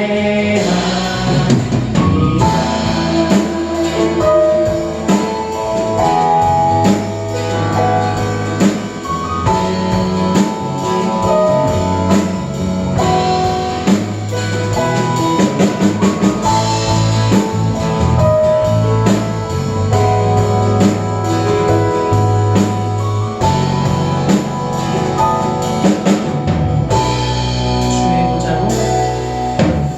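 A worship band playing an instrumental interlude between verses: guitar, bass and keyboard with a drum kit keeping a steady beat.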